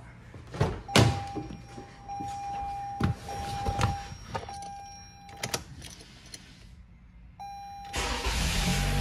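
Clicks and knocks of the driver's door and cabin being handled, with a steady electronic tone sounding on and off; about eight seconds in, the 2019 Toyota Camry's 2.5-litre four-cylinder engine cranks and starts right up on freshly fitted spark plugs, then runs steadily.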